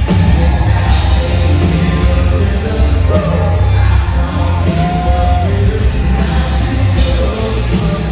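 Live country band playing loud with heavy bass, a male lead singer singing into a microphone and holding two long notes in the middle.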